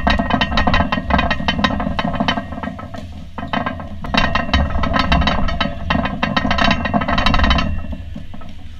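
Loud close-up rattling and handling noise: rapid clicks over a low rumble, in two spells with a lull between, dropping away about three-quarters of the way through.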